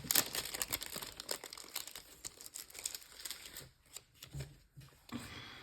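Plastic crinkling and rustling as a pack of trading-card sleeves is handled, dense at first and thinning out after about three and a half seconds.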